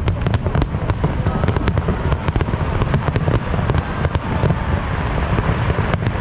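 Fireworks bursting in rapid succession: many sharp crackles and bangs over a steady low rumble.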